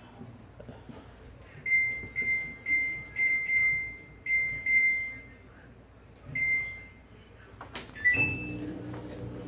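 Samsung washer-dryer control panel beeping as its buttons are pressed to enter test mode: a string of short, high, even beeps, then one higher beep about eight seconds in. After it the machine's motor starts with a steady low hum.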